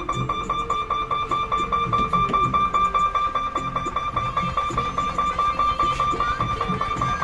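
Instrumental music with plucked strings cuts in suddenly. It has a steady, evenly repeating beat and moving low notes, over a high tone held throughout.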